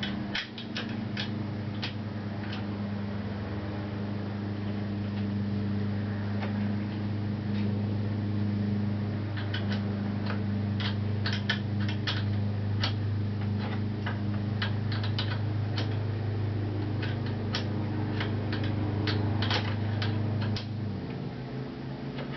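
Ratchet wrench clicking in short irregular runs as the motorcycle fork's top triple-clamp pinch bolt is tightened, over a steady low hum that drops off near the end.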